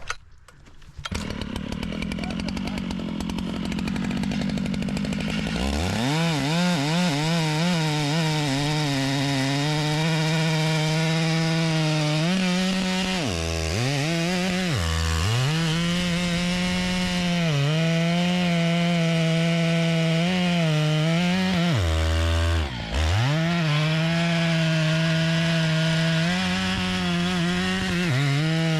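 Large two-stroke chainsaw running at full throttle through a log. The engine note dips sharply and picks back up a few times as the chain bites and is eased off. A lower hum comes before it revs up about six seconds in.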